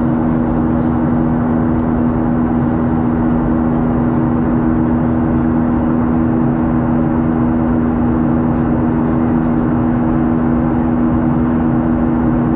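Steady in-flight cabin noise of a Boeing 737: a constant rush of engine and airflow noise with a steady two-note hum running through it.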